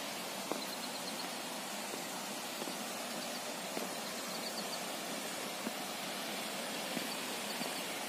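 Steady, even hiss of falling water in a wet, misty forest, with a few faint light knocks and some faint short high chirps.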